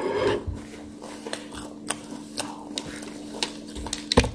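Close-up sounds of a person eating fried chicken: scattered small clicks of chewing and handling, a short breathy burst at the start and a sharper knock just after four seconds, over a steady low hum.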